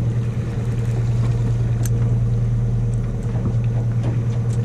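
A party fishing boat's engine running with a steady low hum, a few faint clicks on top.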